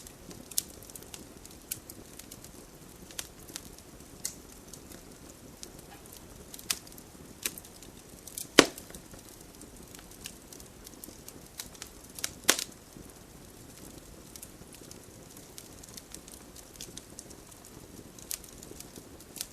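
Wood campfire crackling: irregular sharp pops and snaps over a soft steady hiss, with the two loudest pops about eight and a half and twelve and a half seconds in.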